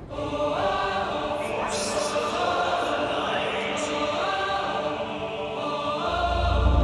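Choral music: voices singing sustained chords that change every second or so, with a deep bass coming in near the end.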